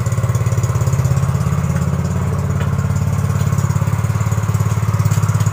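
Yamaha Mio GT scooter's single-cylinder engine idling steadily through a gutted muffler, giving a noisy exhaust note. The idle is stable and low, not high enough to turn the rear wheel: the high idle has been cured.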